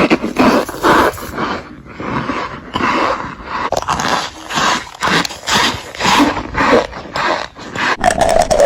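Close-miked crunching and chewing, repeated crunches about two a second, with a steady hum-like tone coming in near the end.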